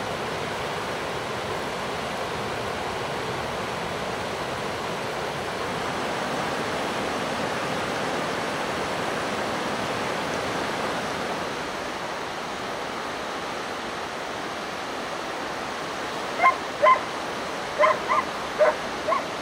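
Steady rush of river water. Near the end an East Siberian Laika barks about six times in quick succession.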